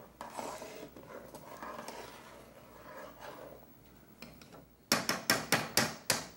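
Long metal spoon stirring and scraping around a large aluminium stockpot of boiling liquid. Near the end the spoon is knocked against the pot, about seven quick, sharp metallic knocks.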